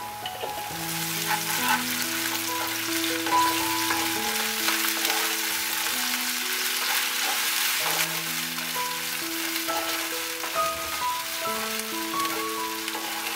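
Sliced onions, dry chillies and ginger garlic paste sizzling in hot oil in a wok, stirred with a wooden spatula. Background music of slow, held notes plays throughout.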